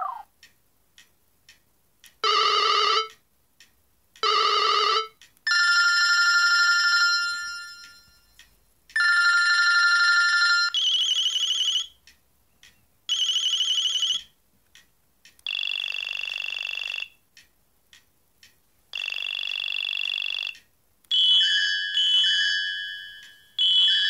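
BlackBerry 8700g playing short previews of its built-in ringer and notifier tones one after another: about nine different electronic jingles and chimes, each lasting under a second to about two seconds, with faint clicks in the gaps as the tone list is scrolled. Near the end, one tone repeats a short melodic figure.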